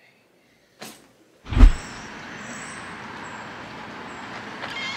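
A sharp click less than a second in, then a heavy thump, after which a car's steady running and road noise carries on.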